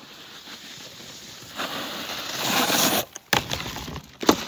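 Snowboard riding over packed snow: a scraping hiss that grows louder as the rider approaches, then the board on a flat bar during a frontboard, with a sharp knock near the end.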